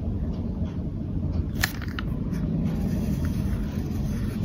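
A steady low background rumble, with one sharp click about one and a half seconds in.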